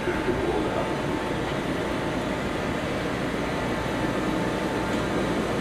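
Steady rumble and hiss of a train at a station platform, with a faint steady tone running through it.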